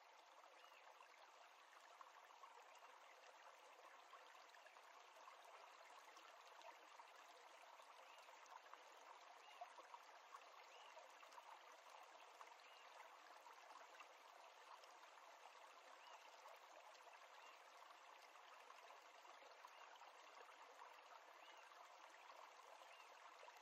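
Near silence: a faint, steady hiss of background noise, with faint short high chirps every couple of seconds.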